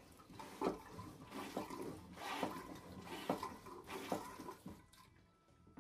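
Jabsco manual marine toilet hand pump being worked up and down, water sloshing and gurgling through the bowl and pump with each stroke, about one stroke a second, stopping near the end.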